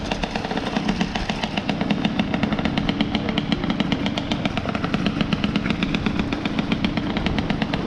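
Two-stroke dirt bike engine running steadily at low revs, its exhaust a rapid, even popping.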